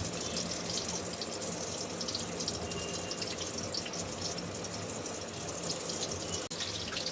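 Water bubbling steadily in a pot as a fish tail is lightly boiled in it, with a brief break about six and a half seconds in.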